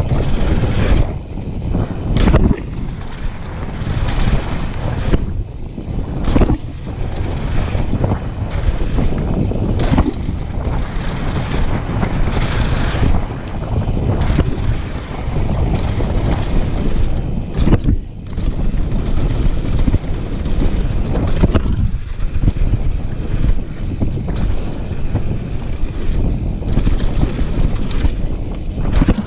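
Wind rushing over the camera microphone of a downhill mountain bike at speed, over a steady rumble of knobby tyres on a dirt and gravel trail, with repeated sharp knocks and rattles as the bike hits bumps.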